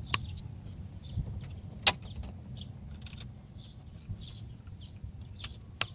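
Wire connectors plugged by gloved hands into a Pentair IntelliCom 2 interface adapter: a few sharp clicks, the loudest about two seconds in, over a low steady rumble.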